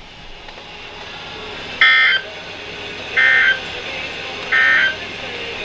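NOAA Weather Radio SAME alert header: three short, identical screeching digital data bursts about 1.3 seconds apart, over faint radio hiss. They mark the start of a new alert, here a severe thunderstorm warning.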